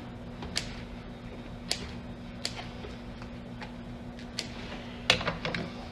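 Scissors snipping slits in headliner fabric: six short, sharp clicks spaced about a second apart, the loudest near the end, over a steady low hum.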